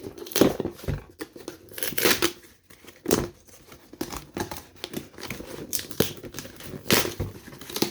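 A cardboard product box being opened by hand: irregular tearing, scraping and crinkling of cardboard and packaging, with a few sharper rasps, the loudest about half a second, three seconds and seven seconds in.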